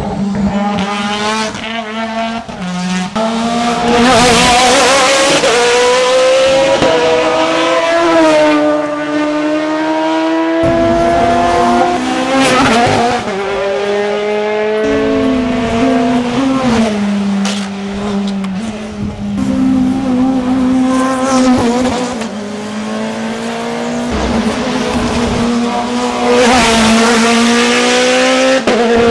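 Hill-climb racing cars at full throttle, the engine notes climbing through each gear and dropping sharply at every upshift. The sound swells loudest at several points as cars pass close by.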